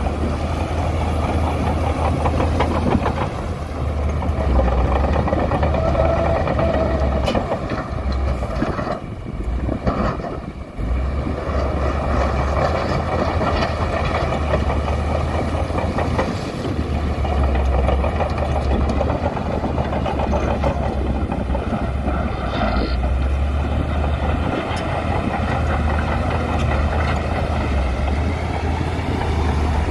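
Heavy diesel engine of a bulldozer running steadily under work, with a deep low rumble that drops off briefly about nine seconds in before picking up again.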